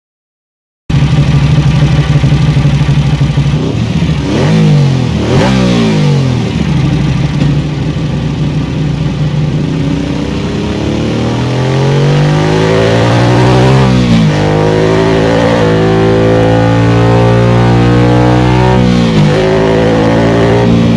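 Ducati Monster 1200's L-twin engine running, cutting in suddenly about a second in. Its pitch swings up and down a few times, then climbs steadily and drops sharply twice, as with upshifts under acceleration.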